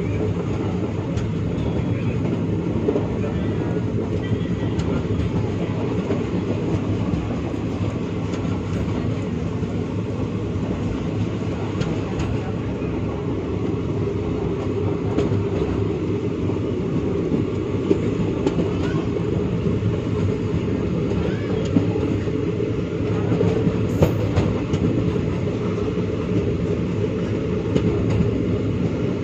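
Moving passenger train heard from inside the carriage: a steady, low running rumble from the wheels on the track, with scattered clicks and one sharper click late on.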